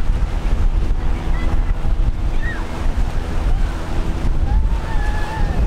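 Wind buffeting the microphone over steady surf, with a faint steady hum that fades out a few seconds in.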